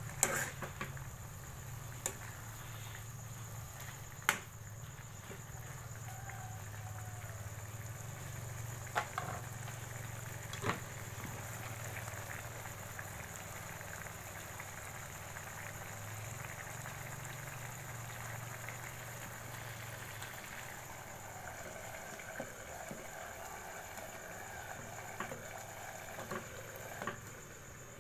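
Wok of pako (fiddlehead fern) broth simmering on the stove, a steady bubbling hiss with a low hum. A few sharp metallic clicks of a utensil and lid against the pan break in, several near the start and middle and a cluster near the end.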